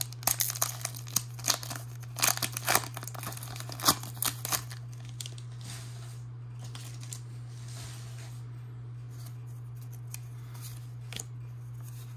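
A foil Pokémon TCG booster pack crinkling and tearing as it is opened. Dense sharp crackles come in the first five seconds or so, then only a few soft rustles as the cards are handled.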